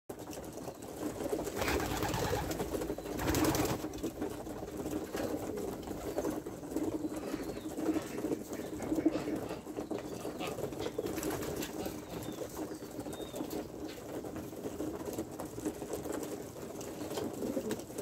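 A flock of homing pigeons cooing together in a continuous low murmur, with louder noisy bursts of fluttering wings about two and three and a half seconds in.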